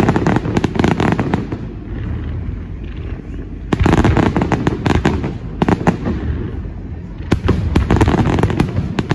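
Aerial fireworks shells bursting in rapid volleys, sharp bangs and crackling coming in three clusters a few seconds apart, over a continuous low rumble.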